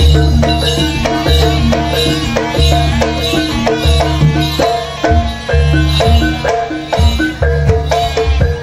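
Live gamelan accompaniment for an East Javanese jaranan horse dance. Deep kendang hand-drum strokes run under tuned metal percussion striking a fast repeating figure, with a steady high tick keeping time.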